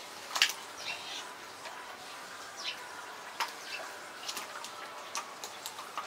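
Scattered sharp clicks and wet taps, the loudest about half a second in: a cormorant's bill clacking as it works a large fish against wet concrete.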